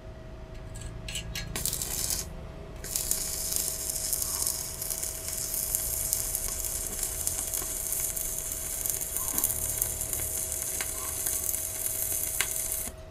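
Stick (MMA) welding arc from an inverter welder set to 200 amps with a 2.5 mm electrode: a few short crackles as the rod is struck, then about ten seconds of steady crackling hiss that cuts off suddenly near the end as the arc is broken.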